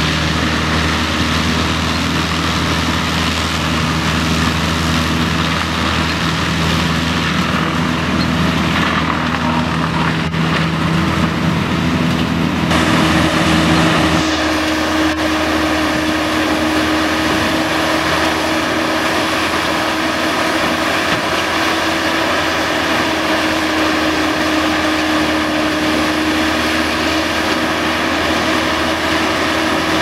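Engine of a heavy machine running steadily; its tone changes about halfway through.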